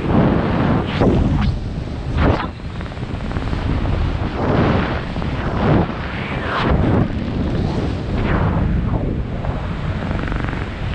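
Wind noise buffeting the camera microphone during a descent under an open parachute canopy: a loud, continuous rumble with repeated gusting surges.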